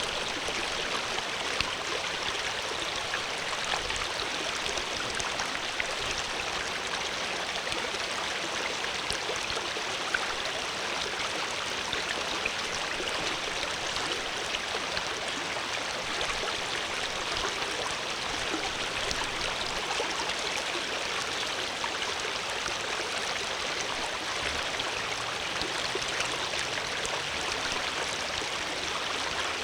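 Water flowing steadily in a stream, a constant rushing babble with small splashes and no change in strength.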